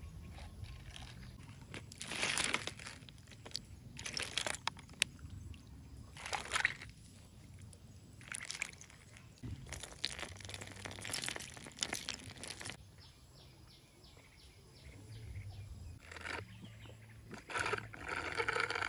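Tea ladled from a metal pot into plastic cups of ice, ice cubes knocking as a straw stirs the drink, and sips through straws near the end. The sounds come as a series of short bursts.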